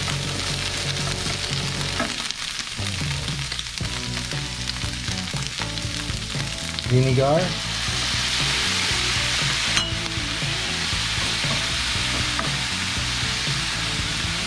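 Diced potatoes, sweet potato and shiitake mushrooms sizzling in oil in a skillet and being stirred with a wooden spatula. About eight seconds in, vinegar is poured into the hot pan and the sizzle turns louder and hissier. There is a single clink near ten seconds.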